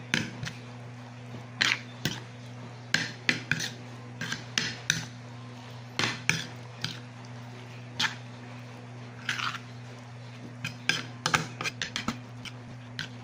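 A metal spoon clinks and scrapes against a ceramic plate in irregular clusters as it tosses instant spaghetti through its sauce.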